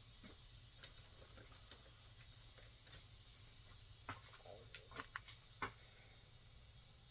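Near silence with faint scattered clicks and taps, a few slightly louder ones between about four and six seconds in.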